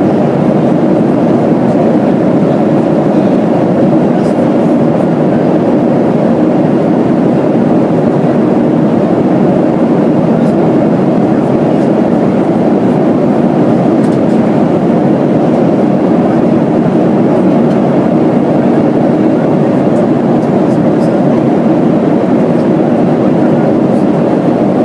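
Steady cabin roar inside a Boeing 737-300 at cruise: the CFM56-3 turbofan engines and the air rushing past the fuselage make an even, unchanging rumble.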